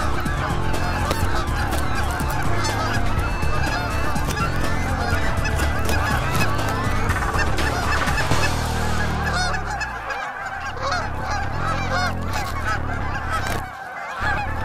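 A large flock of geese honking, many calls overlapping in a continuous din, over a low rumble that drops out briefly twice.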